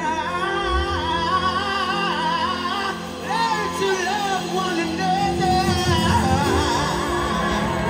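Live rock-and-soul band playing with a wavering, sliding lead melody line over drums and bass; the low end fills out about five seconds in.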